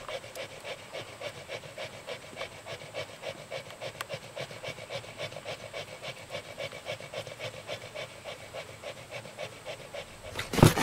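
Fishing cat panting fast and evenly, a steady run of quick breaths. Near the end there is a short, loud burst of noise.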